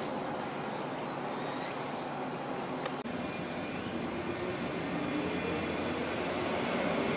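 Green 201 series electric commuter train approaching the station platform, its running rumble and motor hum growing steadily louder over the last few seconds.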